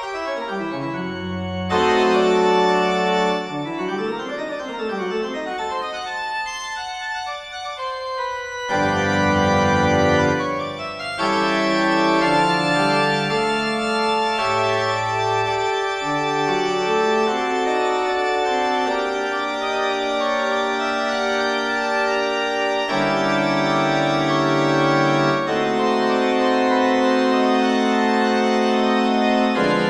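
Background organ music playing long held chords, with a quick run of notes climbing and falling back about four seconds in.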